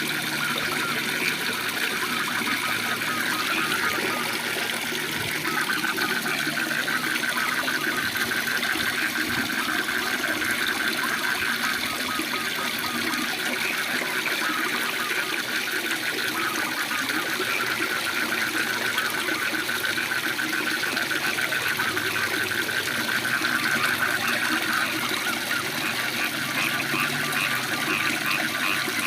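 Waterfall rushing steadily, with frogs calling over it in fast pulsed trills.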